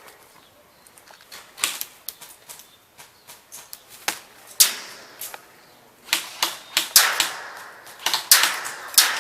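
Airsoft guns firing: sharp, irregular snapping shots, some single and some in quick runs of several, growing louder and more frequent in the second half.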